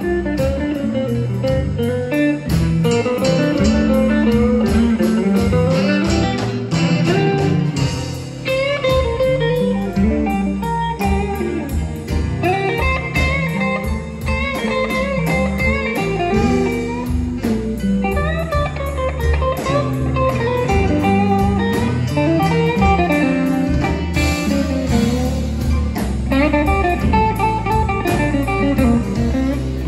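Live blues band playing: electric guitars over bass and drums, with a steady beat.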